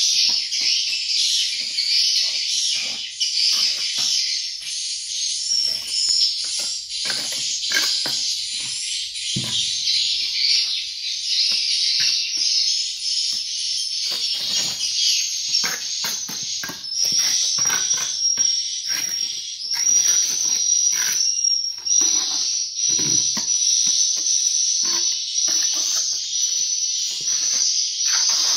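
A dense, continuous chorus of high swiftlet chirping peppered with many short sharp clicks, with a steadier high trill from about halfway through.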